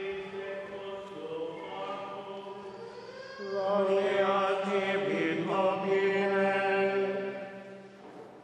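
Choir singing Latin Gregorian chant of the Easter Mass in slow, held notes. It swells louder about three and a half seconds in and fades out near the end.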